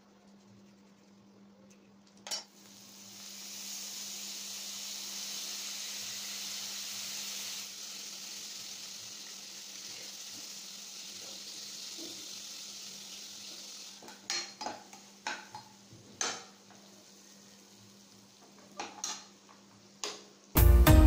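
Tempering of mustard seeds, lentils and curry leaves sizzling in hot oil in a nonstick kadai for about ten seconds, then a spatula stirring and knocking against the pan several times.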